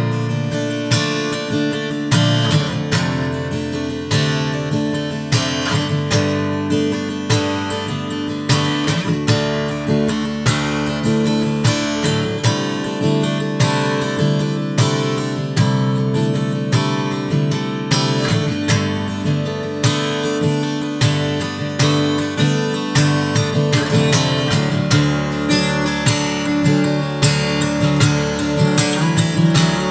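Acoustic guitar strummed in a steady rhythm, the chords changing every few seconds.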